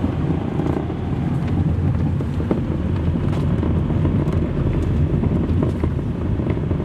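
Car driving on a gravel road, heard from inside the cabin: a steady low rumble of tyres and engine with a few faint clicks.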